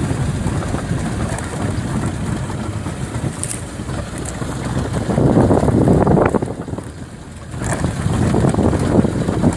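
Wind buffeting the microphone, a low rumbling noise that swells in two strong surges about five and eight seconds in.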